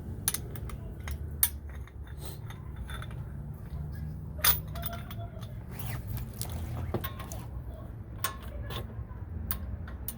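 Scattered metallic clinks and clicks of hand tools being handled and fitted while working on a truck's wheel hub, with one sharper clink about four and a half seconds in, over a low steady rumble.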